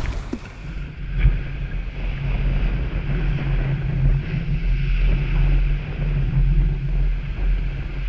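Small waves breaking and washing up the sand close by, a continuous surf hiss, with wind buffeting the microphone as a steady low rumble. A short sharp click about a second in.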